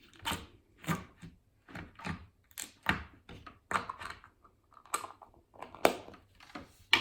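Squishy slime being squeezed and stretched in the hands, giving short wet squelches that sound like farts, about a dozen in a row.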